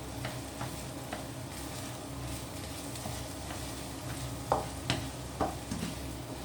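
Beaten eggs sizzling in oil in a hot wok while a spatula pushes and breaks them up. The spatula scrapes and taps against the wok, with a few louder knocks past the middle.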